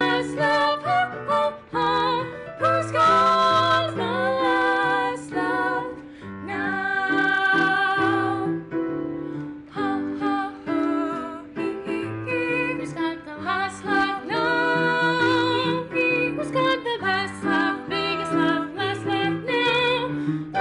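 Two women singing together with vibrato, accompanied by an electric keyboard playing chords and bass notes.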